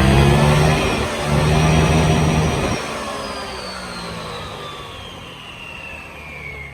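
CVT scooter engine, freshly fitted with a reworked CVT and a new air filter, revved hard in two bursts on the stand; about three seconds in the throttle is released and a high whine from the spinning drivetrain falls steadily in pitch as it winds down.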